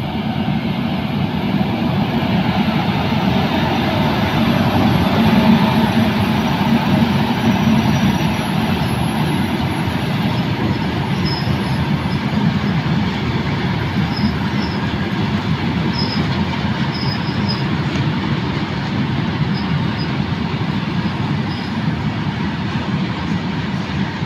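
Electric-hauled freight train passing close by, a steady rumble of wagon wheels on the rails, loudest about five seconds in. Short, faint, high squeaks come now and then through the second half.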